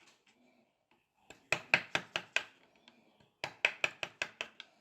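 Two quick runs of light tapping blows, about six or seven each at roughly five a second, from hand-tool work on a small wooden handle.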